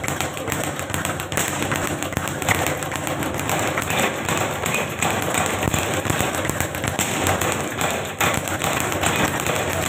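Speed bag being worked fast and without a break, the bag rattling against the rebound platform in a rapid rolling patter of hits.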